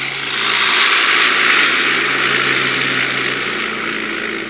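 Vibratory case tumbler running, rifle brass cases and granular cleaning media churning in its bowl with a steady rattling hiss over a low motor hum.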